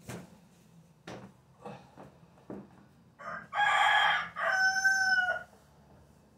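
A rooster crowing once, about three seconds in: a crow of about two seconds in several parts, ending on a long held note. Before it, a few light knocks.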